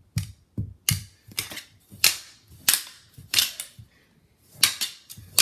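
Thin plastic mini hockey sticks clacking against each other and slapping a small puck in a scramble for it: a quick, irregular run of about a dozen sharp clacks, with a pause of about a second a little past the middle.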